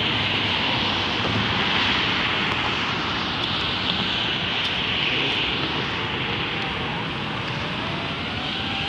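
Steady hiss and rumble of freeway traffic below, tyre noise from many cars. In the second half a faint engine tone glides in pitch over it.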